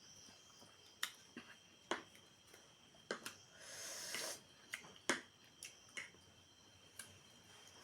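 Eating sounds: scattered sharp mouth clicks and smacks, about eight in all, with a short noisy breath about four seconds in. A faint steady high tone runs underneath.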